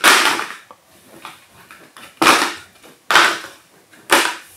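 Blister-packed Mini-Z spare tyre sets tossed onto a pile of other packets, one after another: four sharp plastic landings, each fading over about half a second. The first lands right away and the other three come about a second apart near the end.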